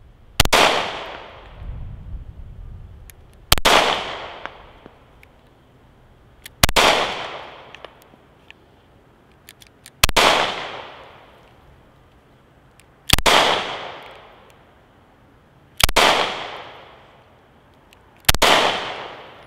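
Taurus G2C pistol fired seven times, single shots about three seconds apart, each with a fading echo. The pistol cycles on every shot without jamming, even held in a weak one-handed grip.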